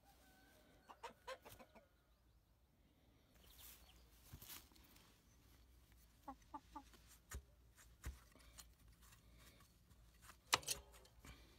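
Near silence with faint chicken clucking, a few short clucks about six and a half seconds in. Scattered light clicks and knocks, the loudest near the end.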